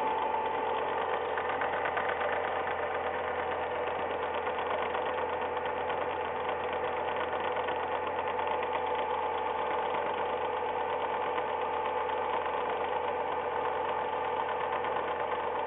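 Ford Ka engine idling cold with a fast, steady tek-tek-tek ticking over the running sound. The owner hears the tick only when the engine is cold and does not know its cause.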